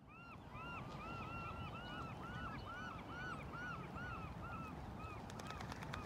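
A flock of waterfowl calling: many short, arched calls overlapping in a busy chorus that thins out near the end, over a low steady background rumble.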